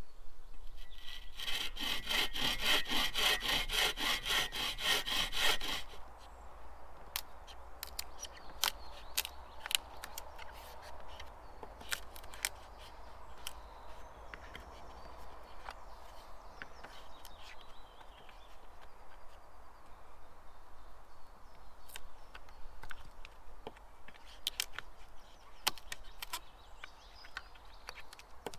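A hand saw cutting through wood in quick, even strokes, about four a second, stopping about six seconds in. Scattered light clicks and knocks follow.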